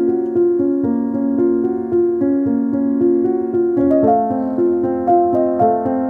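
Background music: piano playing a gentle run of repeated notes, moving up to a higher chord about four seconds in.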